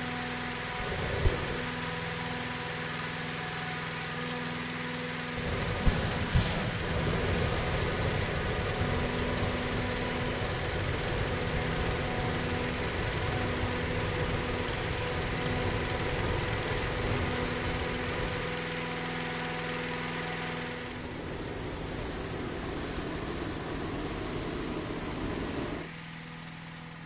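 Hot air balloon propane burner firing into the envelope during hot inflation: a broad rushing roar that comes in about five seconds in and eases off around twenty seconds. Under it runs a steady engine hum, with a few sharp clicks near the start.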